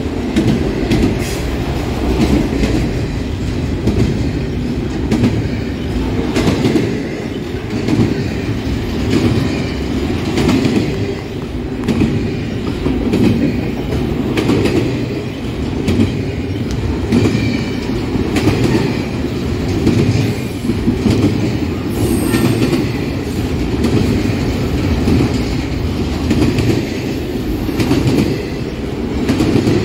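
Freight train cars rolling past: a steady rumble of steel wheels on rail, with repeated clicking as the wheels cross rail joints and a brief high wheel squeal about two-thirds of the way through.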